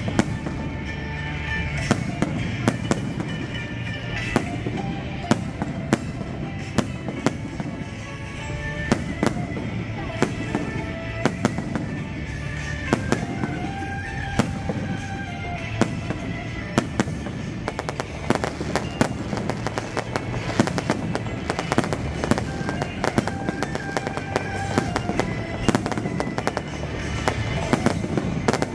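Fireworks going off in a dense, continuous barrage: many sharp bangs and crackles from aerial bursts and rising launches, close together the whole time.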